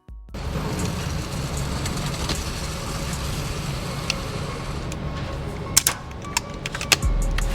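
Steady low rumbling noise with a few sharp clicks after the middle; a deep bass line of music comes back in near the end.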